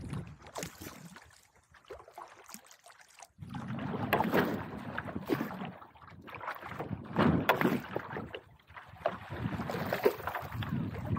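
Lake water lapping and sloshing close to the microphone, with some wind buffeting it; faint at first, then louder and choppier from about three seconds in.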